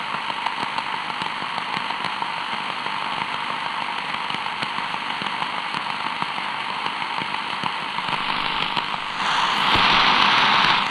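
Shortwave radio static: a steady hiss full of crackles from the receiver's speaker, rising to a louder rush of noise about nine seconds in.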